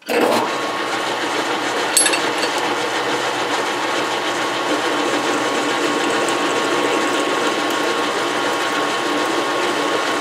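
Metal lathe switched on and running steadily while a twist drill in the tailstock chuck bores into the end of a spinning metal bar, with a steady whine and one sharp click about two seconds in.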